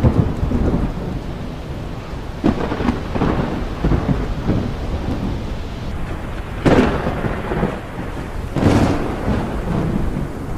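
Thunderstorm: a continuous low rumble of thunder with sharp, loud cracks near the start, about two and a half seconds in, and two loudest ones about six and a half and eight and a half seconds in, over steady rain.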